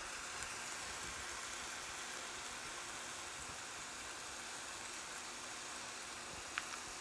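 Diced tomato, onion and sweet pepper sautéing in oil in a stainless steel pan, giving a soft, steady sizzle. A single light tap about six and a half seconds in.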